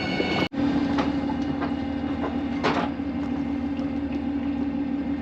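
Small dinghy outboard motor running steadily at a constant pitch.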